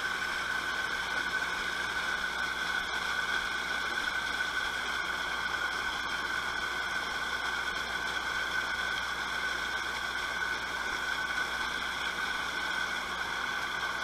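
Steady background hiss with a constant high-pitched whine over it, unchanging throughout, with no distinct events.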